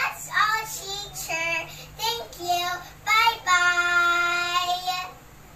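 A young girl singing a short phrase, ending on one long held note that stops about five seconds in.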